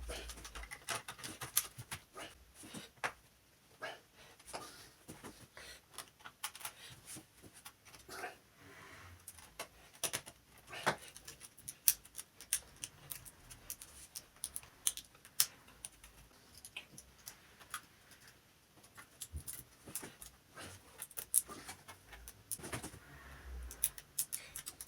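Irregular small clicks and taps, with light handling noise between them, as tools and the plastic and metal parts of a laptop are handled while it is taken apart.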